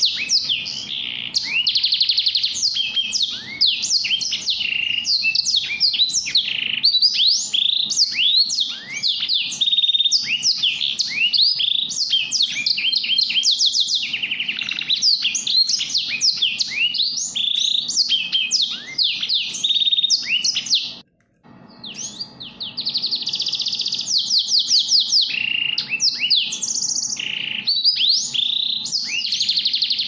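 Small finch singing: a fast, unbroken run of varied chirps, sweeps and trills. It breaks off for about half a second roughly two-thirds of the way through, then goes on.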